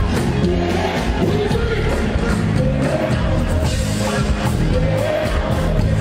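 Live Afrobeats performance through a stage sound system: singing over a steady beat with heavy bass, with crowd noise beneath.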